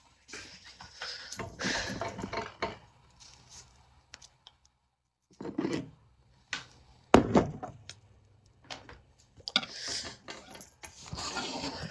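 Handling noise close to a phone's microphone: rustling and light bumps, with one sharp knock about seven seconds in.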